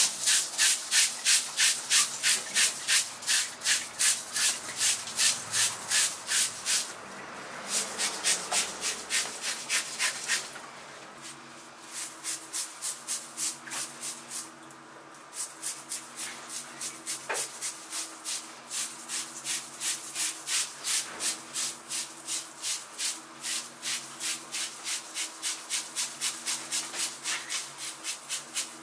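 Rapid rasping scrapes across the scales of a whole yellowtail as it is scaled, about three strokes a second, with a few short pauses.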